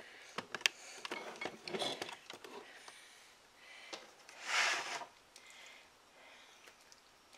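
Light clicks and scrapes of a utensil against a dish of baked squash, then a short breathy puff of air about four and a half seconds in, the loudest sound.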